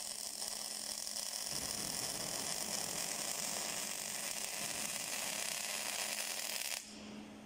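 MIG welding arc of an automatic circular-seam welder hissing steadily as it lays a bead around a flange on a steel tube. The arc cuts off suddenly near the end, leaving a low steady hum.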